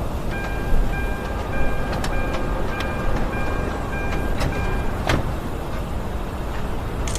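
Steady low rumble of a car's engine idling, with a high repeating electronic beep for the first five seconds or so and several sharp knocks.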